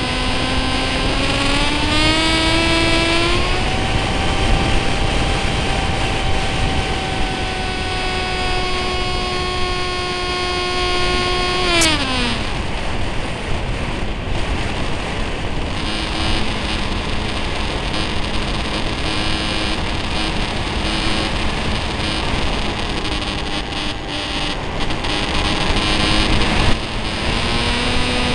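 Electric motor and propeller of an RC Stryker flying wing, heard from a camera on the plane. The whine rises in pitch about two seconds in, holds steady, then winds down sharply about twelve seconds in as power comes off. After that it is mostly wind rushing past the airframe with a faint low hum, until the whine starts climbing again near the end.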